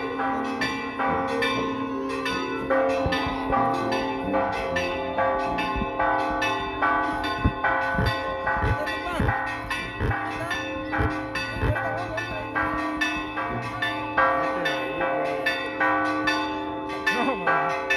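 Church bells ringing a continuous peal, struck about twice a second, the strokes overlapping in long ringing tones. A few short rising sweeps sound underneath about halfway through.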